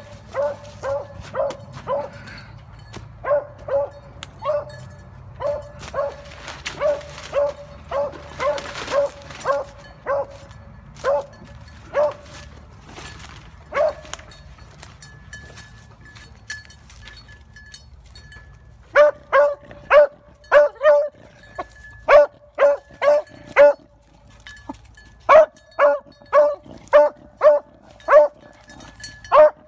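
Beagle baying while trailing a rabbit's scent: short, high barks about two a second. They break off for a few seconds midway, then come back louder.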